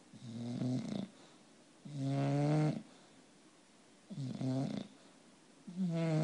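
English bulldog snoring: four loud, rasping snores about two seconds apart, each a buzzing, pitched breath with quiet gaps between.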